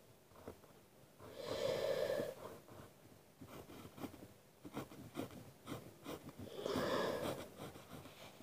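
Two long breaths near the microphone, each about a second, some five seconds apart. Between them, faint short scratches of a pencil shading on paper.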